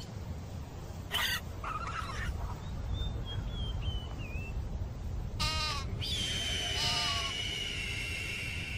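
Chamois bleating: short calls that fall in pitch, about a second in, then again around five and a half and seven seconds in. Thin high whistling runs through the middle and latter part, over a steady low wind rumble.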